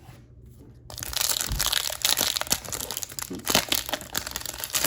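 Foil wrapper of a Bowman baseball card pack crinkling and crumpling as the pack is opened, starting about a second in.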